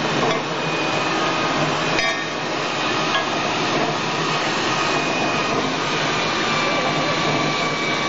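A 5 L water-bottle washing, filling and capping machine running: a steady mechanical clatter and hiss, with a sharp click about two seconds in.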